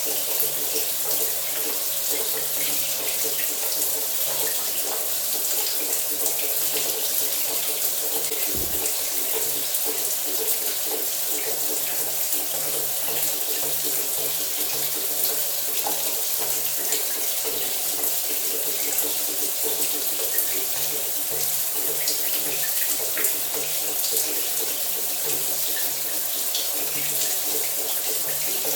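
Shower running steadily: water spraying and splashing in an even hiss, with a brief low thump about eight and a half seconds in.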